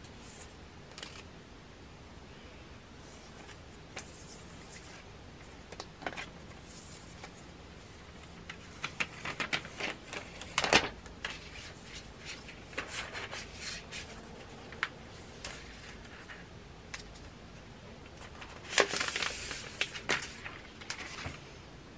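Tablet and cardboard packaging being handled: scattered light clicks and taps, with bursts of crinkling as the protective plastic wrap is peeled off the iPad Pro about nine to eleven seconds in, and again as a wrapping sheet is handled near the end.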